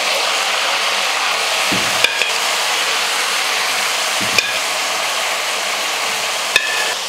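Boiled mutton pieces sizzling steadily in hot oil in a kadai, among tempering spices. Three sharp metallic clicks come about two, four and six and a half seconds in.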